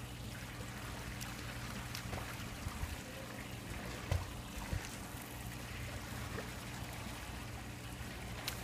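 Swimming pool water lapping and sloshing steadily as people swim, with a few faint splashes about four seconds in and a steady low hum underneath.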